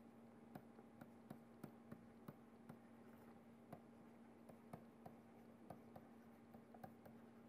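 Near silence with faint, irregular ticks of a stylus tapping a tablet as words are handwritten, over a faint steady hum.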